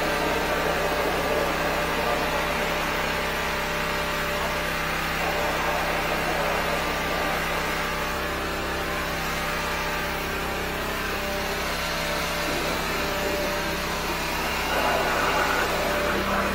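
A 13-horsepower high-pressure sewer jetter's engine running steadily under load while its hose jets water through a blocked drain line.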